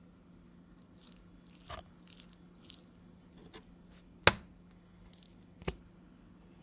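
Raw duck breasts handled and flipped on a wooden cutting board: soft wet handling sounds with a sharp slap of meat on wood about four seconds in, the loudest sound, and a smaller one shortly after.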